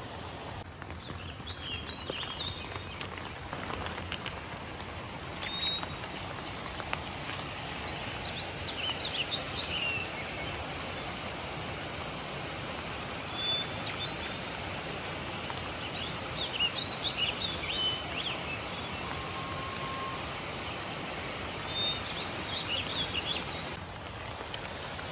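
Wild birds chirping and singing in short scattered phrases over a steady rushing noise of water.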